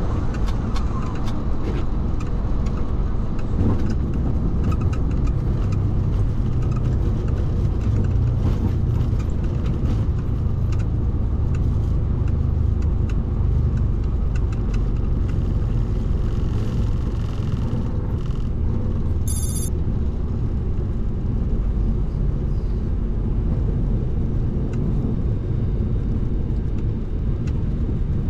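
Boeing 737-800 touching down and rolling out on the runway, heard from the cockpit: a steady, loud rumble of engines and wheels on the runway, with light clicks and rattles throughout. A brief high-pitched chirp sounds about two-thirds of the way through.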